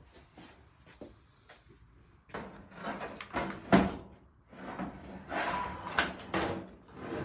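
Old sheet-metal fluorescent light fixture being handled and moved: sliding and scraping in two spells, with a sharp knock about four seconds in and another about six seconds in.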